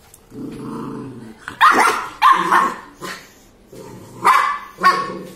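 Golden retriever puppy growling low for about a second, then barking four times in two quick pairs.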